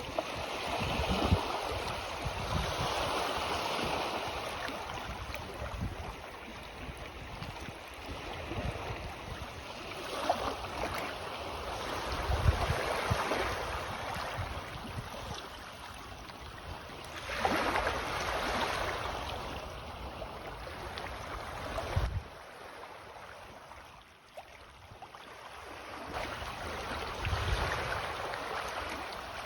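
Small sea waves washing in on a rising tide, each wash swelling to a hiss and fading away, about four times.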